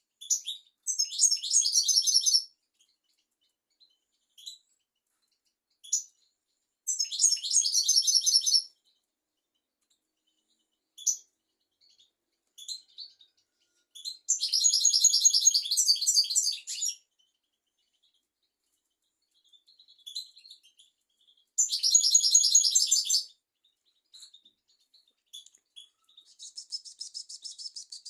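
European goldfinch singing: four twittering, tinkling song phrases of about two seconds each, separated by pauses with a few single call notes, then a fast buzzy trill near the end.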